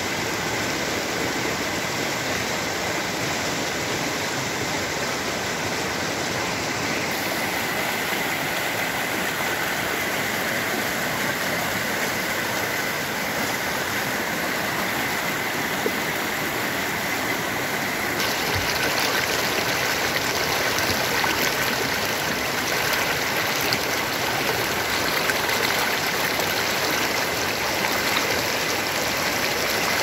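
Fast glacial snowmelt mountain stream rushing over rocks, a steady hiss of white water, a little louder from about two-thirds of the way through.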